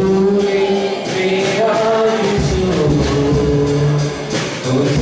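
A man sings a worship song into a microphone over amplified musical accompaniment, holding long notes; a low bass line comes in about halfway through.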